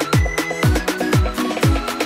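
Electronic dance music with a kick drum on every beat, about two beats a second, under crisp percussion and sustained synth notes.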